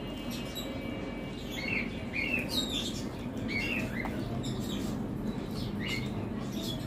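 Close-miked eating by hand: wet chewing and mouth smacking, with many small clicks and a few short squeaky chirps, as rice, dal and posto are mixed and eaten with the fingers.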